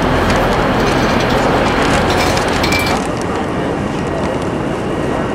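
Railway station concourse ambience: a steady wash of crowd hubbub and echoing background noise, with light clicks and a short high beep in the first three seconds. After that it turns duller.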